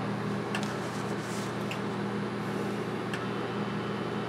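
Steady low hum of a fan or electrical equipment, with a few faint clicks, the first about half a second in and the last a little past three seconds.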